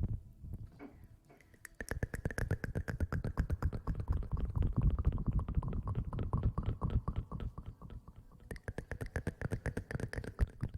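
Close-miked ASMR scratching and rubbing, many quick strokes a second. It starts about two seconds in, eases for a moment near eight seconds and then picks up again.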